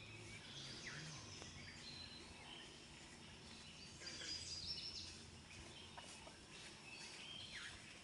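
Faint woodland birds calling and chirping: scattered high chirps and short falling calls, busiest about four to five seconds in, over a quiet steady background.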